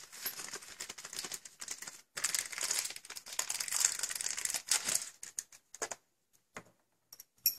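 Plastic packaging crinkling and rustling as parts are unwrapped by hand. It stops about six seconds in, and a few light clicks follow near the end.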